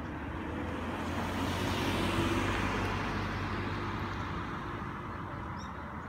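A car passing by on the road: engine and tyre noise swelling to a peak about two seconds in, then fading away.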